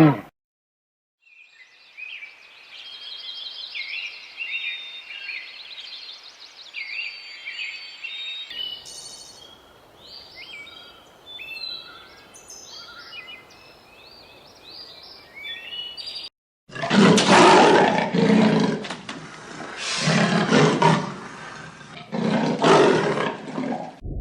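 Small birds chirping with high, quick calls, then three loud calls from a large animal.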